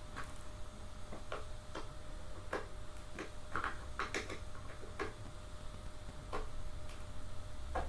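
Irregular short clicks and taps, about a dozen, from an Allen key working a bolt on a gaming chair as it is tightened a little more during assembly.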